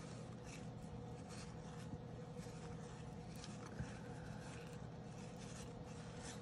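Faint rubbing and light flicks of cardboard 1987 Topps baseball cards being slid off one stack onto another by hand, with a few soft ticks, over a steady low hum.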